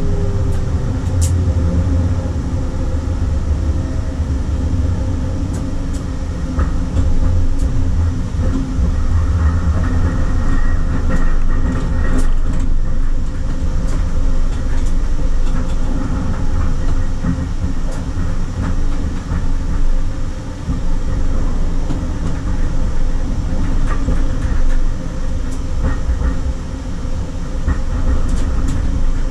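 SL95 tram running along its track: a steady low rumble of wheels on rails and drive, with a faint steady hum and scattered sharp clicks from the track.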